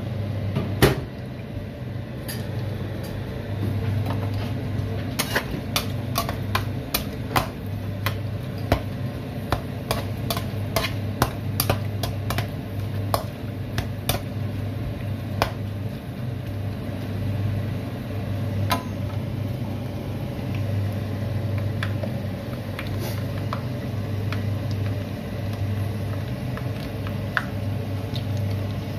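Pieces of sun-dried pork skin on their second frying in a pan of hot oil, popping and crackling in sharp snaps, most often from about five to sixteen seconds in, over a steady low hum. A single loud knock about a second in.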